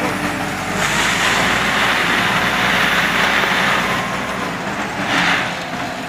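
Large wheel loader's diesel engine running as it tips a bucketful of material into a steel hopper. A rushing, pouring noise is loudest from about one to four seconds in, with a second brief surge about five seconds in.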